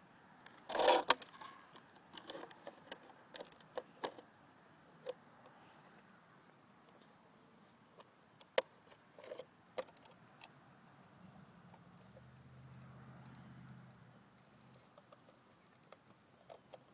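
Plastic clattering and clicking as the body shell of a Traxxas Rustler RC truck is picked up and fitted onto the chassis: a louder clatter about a second in, then scattered sharp clicks and knocks. A faint low hum comes in about eleven seconds in and fades a few seconds later.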